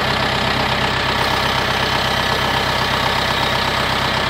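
Kubota M60 tractor's diesel engine idling steadily.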